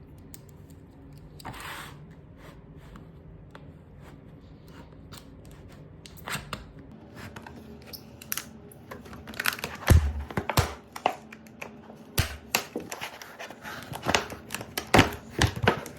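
Packaging of a spade bit set being torn and opened by hand: tearing and crinkling with scattered sharp clicks. It gets busier in the second half, with a couple of heavier knocks about ten and twelve seconds in.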